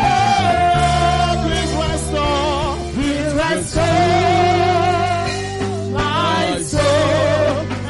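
Gospel music: a single voice singing long, held notes with vibrato over steady sustained chords.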